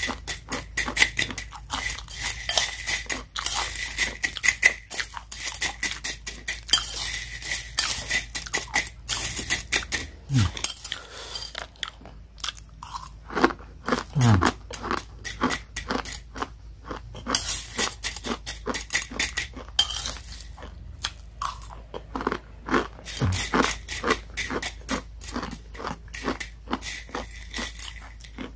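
Close-up crunching and chewing of crisp, dry-fried Mie Sedaap instant noodles: a dense run of crackly bites, one after another.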